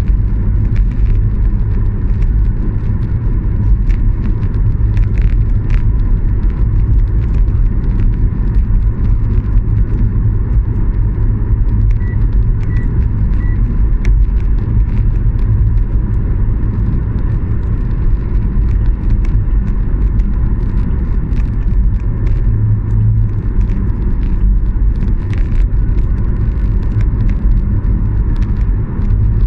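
Steady low rumble of a moving vehicle or traffic, with three short high beeps about twelve seconds in.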